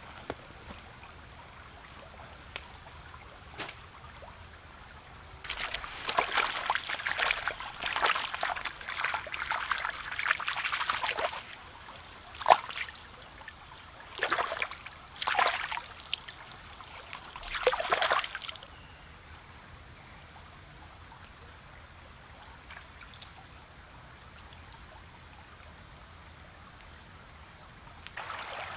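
Wild leeks being swished and rinsed in a shallow creek: a run of splashing and sloshing for about six seconds, then a sharp knock and three shorter splashes, over the faint steady babble of the stream.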